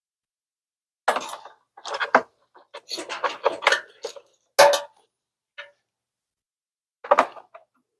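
Metallic clinking and rattling of cable ring terminals being handled and fitted onto battery posts: a run of clatters over about four seconds, the sharpest about halfway through, then a couple of short clinks near the end.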